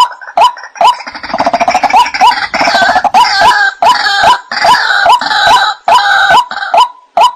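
White-breasted waterhen (ruak-ruak) calling: a steady series of short 'kwak' notes about two a second. From about a second in, a louder, denser run of overlapping calls joins them, then drops away near the end.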